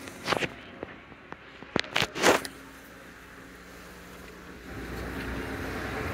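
Footsteps on a hard floor, a few short sharp steps in the first half, then a steady rushing noise from the car wash machinery that swells a little after two-thirds of the way through.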